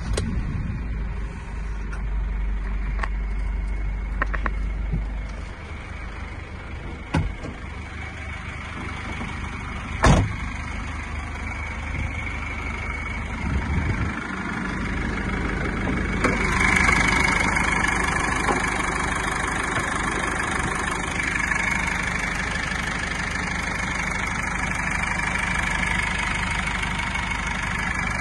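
GAZelle Next van's four-cylinder diesel engine idling steadily just after starting. A single loud thump comes about ten seconds in, and from about sixteen seconds on the idle is louder and clearer, heard from the open engine bay.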